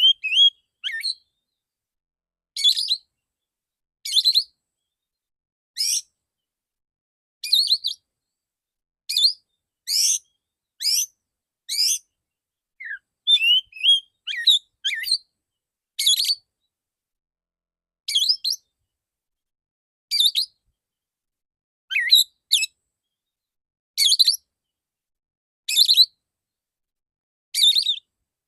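Male oriental magpie-robin singing short, sharp, high-pitched phrases of the rapid 'shooting' type, one burst about every two seconds, with a quicker run of phrases about halfway through.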